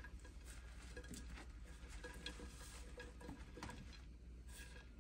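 Faint, scattered light taps and clicks of cubed fried chicken pieces being dropped into a wok full of sweet and sour sauce.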